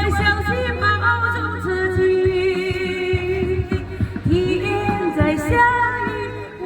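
Ballad music with a wavering, voice-like melody over steady bass notes.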